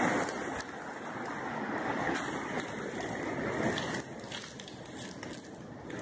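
Wind rushing over the microphone, with scattered crackles of dry leaf litter as a hand reaches into it.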